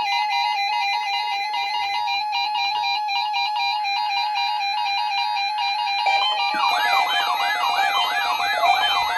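Electronic alert tones from weather radio receivers set off by the weekly alarm test: a repeating pattern of steady beeping tones, joined about six seconds in by a fast warbling siren tone that rises and falls several times a second.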